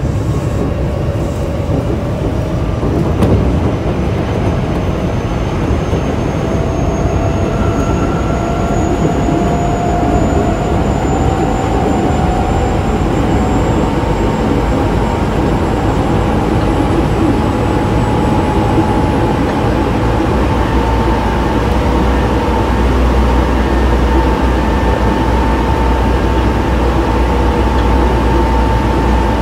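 Osaka Metro 24 series electric train running on Hitachi IGBT inverter drive, over a steady rumble of wheels on track. The traction-motor whine climbs slowly in pitch as the train gathers speed.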